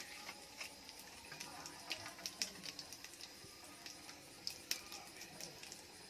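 Hot cooking oil bubbling in an aluminium pot over a wood fire: faint sizzling with irregular small crackles and pops.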